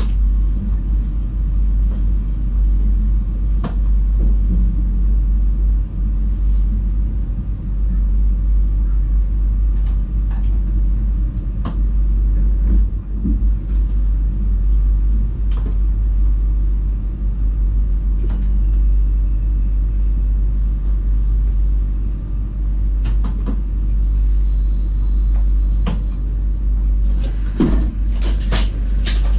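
Low, steady rumble in the cab of a VIRM double-deck electric train as it rolls slowly into a station platform and comes to a stop, with scattered clicks and knocks and a quick run of sharper clicks near the end.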